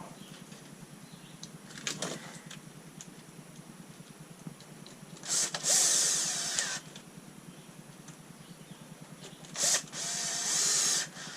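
A small electric motor run twice in short bursts of about a second and a half, rising in pitch as it spins up, with a few light clicks from parts being handled between the bursts.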